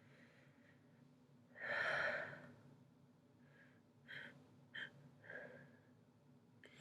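A person sniffling: one loud breath about two seconds in, then a few short sniffs in quick succession.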